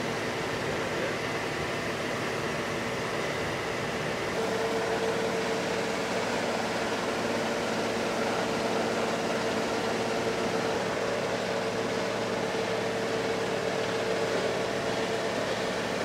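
Feed-processing machinery of a small feed pellet plant running steadily, a constant mechanical hum and whir. A steady tone in it grows louder about four seconds in.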